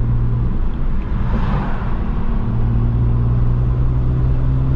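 BMW 335i's N54 twin-turbo straight-six running while driving, heard from inside the car. The steady engine note breaks off about half a second in and comes back slightly higher and steady about two and a half seconds in.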